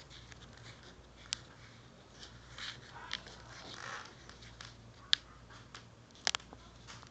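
Small plastic Beyblade part handled on a wooden table: a few sharp clicks and taps, two close together near the end, with soft rustles of fingers.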